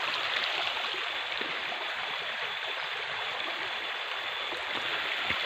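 River water running steadily, a continuous rushing hiss.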